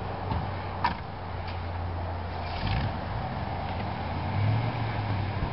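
A lull in a fireworks display: a steady low rumble, with a single sharp pop just under a second in and a brief faint crackle a little past halfway.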